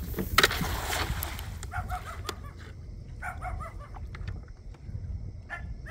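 Short, high animal calls in small clusters, after a brief noisy rustle or splash about half a second in.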